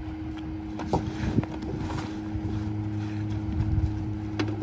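Rear-loader garbage truck running with a steady hum, a lower steady tone joining about two seconds in. Bulk trash being thrown into the hopper gives scattered knocks and thuds.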